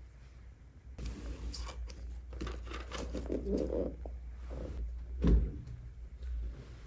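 Plastic snack bags and a cardboard box rustling and crinkling as they are handled, then a single thump about five seconds in as a refrigerator door is pulled open.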